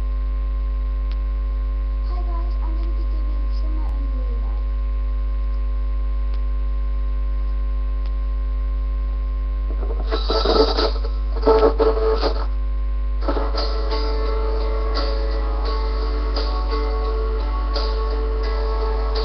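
Loud, steady electrical mains hum picked up by a webcam microphone. About ten seconds in come a couple of seconds of loud, irregular noise, and from about thirteen seconds recorded music starts playing over the hum.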